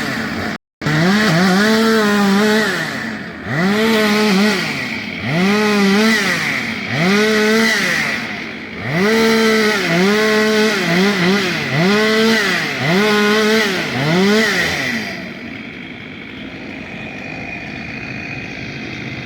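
Chainsaw engine revving up and dropping back again and again, about one rise every one and a half seconds, as it cuts the fallen tree. About three-quarters of the way through it falls to a lower, quieter, steadier running.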